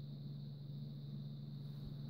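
Steady low hum with a faint high-pitched whine over it, and a soft low bump near the end.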